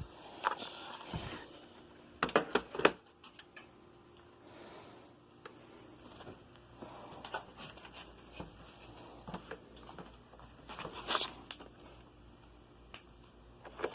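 Handling noises: a quick run of sharp clicks and knocks about two to three seconds in and another cluster around eleven seconds, with light scraping and rustling in between.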